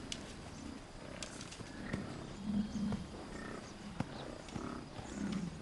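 A herd of American bison grunting, with several low grunts in the middle and near the end.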